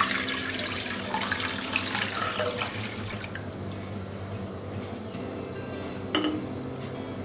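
Water poured from a glass jug into a non-stick pan, splashing as it fills, then fading away after about three seconds as the pour stops and the water settles.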